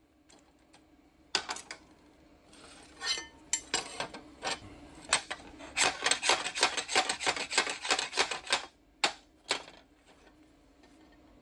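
Steel plate scraped back and forth against another steel plate in quick, rasping strokes, knocking slag off a freshly plasma-cut edge. The strokes come faster from about halfway, then stop after two last scrapes; a few light metal clicks come before them.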